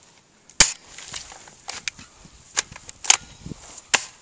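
Airsoft guns firing single shots: about six sharp pops at irregular intervals, the first the loudest.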